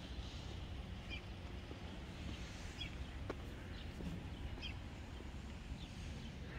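Small birds chirping now and then, short high calls every second or two, over a steady low rumble.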